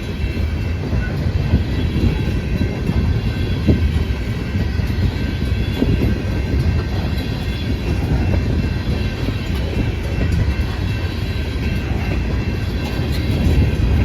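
Freight cars of a long CSX freight train rolling past: a steady low rumble of steel wheels on rail with scattered knocks and faint thin high-pitched tones.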